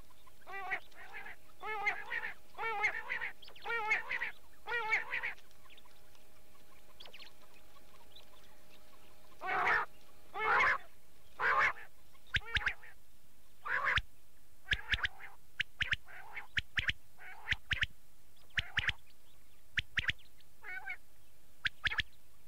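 Recorded quail calls used as a hunting lure: a run of about five quavering calls, then after a pause louder calls followed by many short sharp notes, over a steady background hiss.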